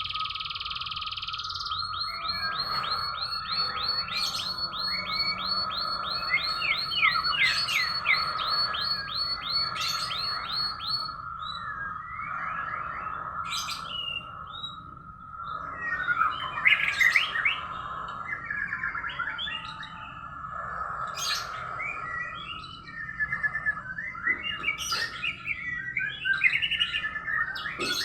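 Domestic canary singing a long, varied song: a fast rolling trill of rapidly repeated notes for the first ten seconds or so, then changing chirps and short phrases, over a steady high tone.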